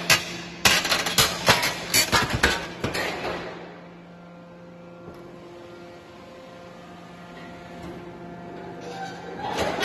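A 550 hydraulic tiger-head (alligator) scrap shear crunching and clanking as it cuts through scrap sheet metal for the first three seconds or so. Then only the steady hum of its hydraulic power unit is left while the jaw opens, and the cutting noise starts again near the end.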